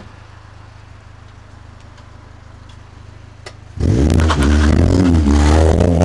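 Honda Civic with a Magnex aftermarket exhaust idling with a low, steady hum. About four seconds in it pulls away under hard throttle and the exhaust note jumps loud, its pitch rising and falling as the engine revs.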